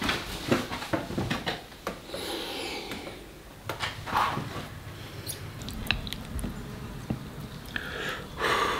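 Quiet table handling sounds: light clicks and knocks of wooden chopsticks and a ceramic bowl on a wooden table. A short breathy sound comes near the end as noodles are lifted from the bowl.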